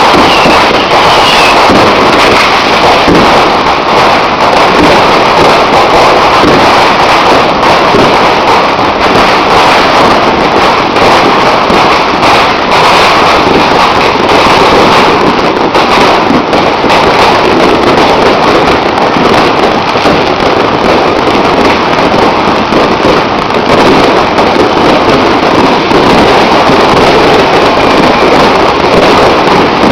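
A dense, unbroken barrage of fireworks and firecrackers, countless pops and bangs running together into a continuous crackle. It is loud enough to hold the recording near its ceiling throughout.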